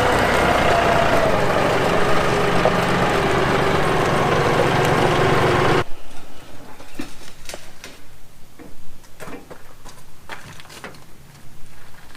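Tractor engine running steadily, cut off abruptly about six seconds in, then scattered light clicks and knocks.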